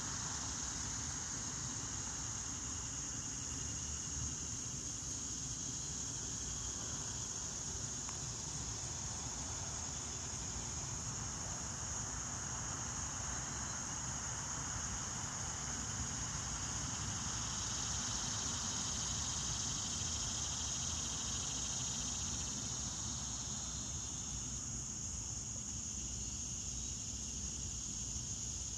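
A steady, high-pitched chorus of insects that runs without a break, with a low rumble underneath.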